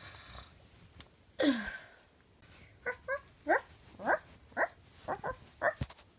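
A dog whining once, then a quick run of short whimpering yips, each falling in pitch.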